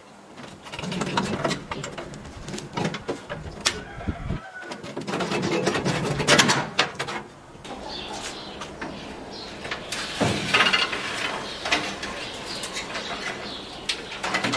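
Irregular clicks, knocks and rustling from hands dismantling an old gas stove, with the fibreglass oven insulation being torn out near the end.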